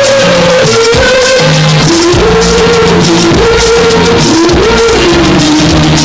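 Bollywood film song playing loudly, a held, wavering melody line over a steady accompaniment.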